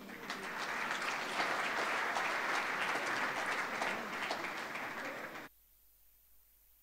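Large seated audience applauding, a dense patter of many hands clapping. About five and a half seconds in, the applause cuts off abruptly, leaving near silence.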